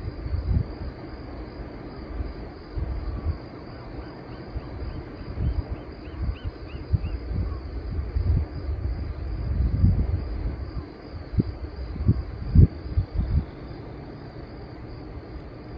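Steady high insect trill, cricket-like, running throughout, with a brief run of faint quick chirps about four to seven seconds in. Irregular gusty low rumbles and thumps, typical of wind on the microphone, are louder than the trill.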